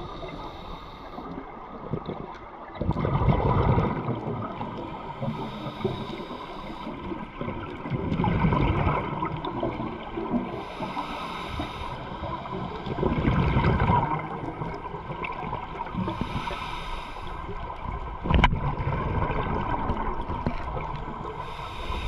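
Scuba diver breathing through a regulator underwater: a hiss on each inhale, then a loud burst of rumbling exhaust bubbles, repeating about every five seconds.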